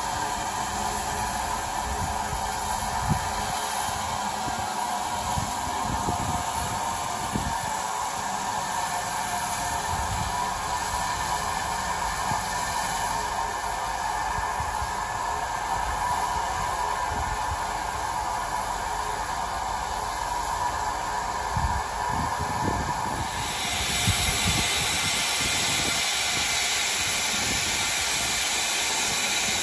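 Steam locomotive standing with a steady hiss of escaping steam, which turns louder and brighter about 24 seconds in.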